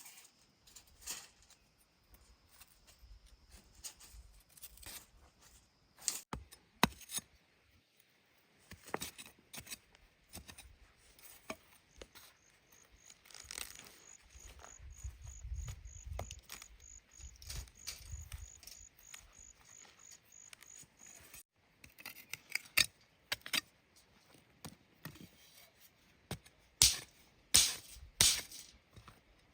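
Irregular clinks, knocks and scrapes, scattered throughout, with a low rumble around the middle.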